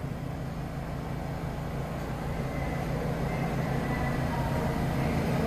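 New York City subway train approaching through the tunnel, its rumble growing steadily louder, over the steady low hum of a train standing at the platform.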